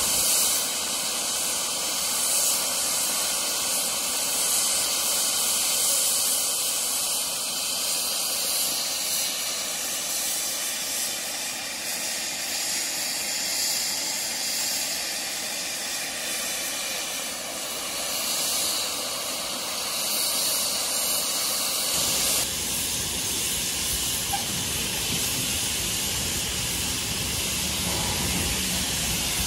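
Steam locomotive standing and hissing steam steadily. About two-thirds of the way through, the hiss turns deeper and fuller, with more low rumble underneath.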